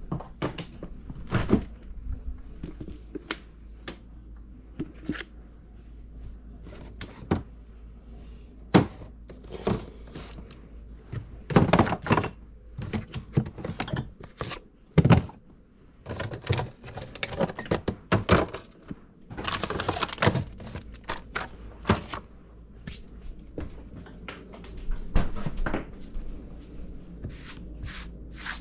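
Food containers being taken from a fridge and handled: a run of sharp clicks and knocks from plastic tubs and lids, with a few stretches of denser clatter.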